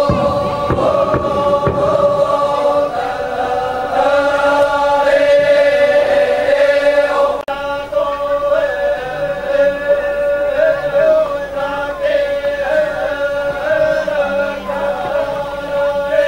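A group of voices chanting together in long, slowly shifting held notes: a funeral chant. There is a brief break about seven seconds in.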